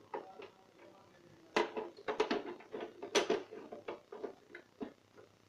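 A plastic filter grille being pushed and snapped onto the plastic housing of an air purifier, closing over the filter: a run of light, irregular clicks and knocks.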